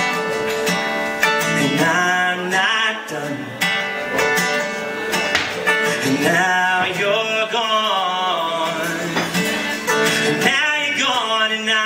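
Live acoustic guitar strummed under a man's singing voice, the sung lines wavering and bending in pitch.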